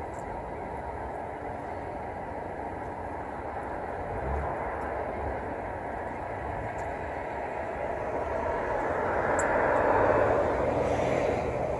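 Steady background rumble of road traffic that swells as a vehicle passes, peaking about ten seconds in and then easing.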